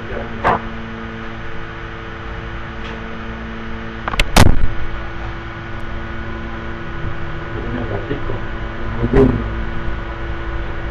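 A steady hum, with a loud sharp click about four seconds in and a few softer knocks near the end.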